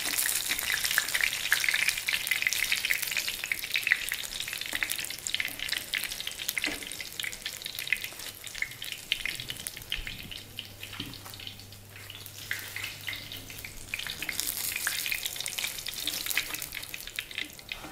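Hot oil sizzling and crackling as besan-battered stuffed green chillies (mirchi bajji) deep-fry in a clay pot, with now and then a tap of a slotted spatula as they are lifted out. The sizzling eases off midway and grows louder again near the end.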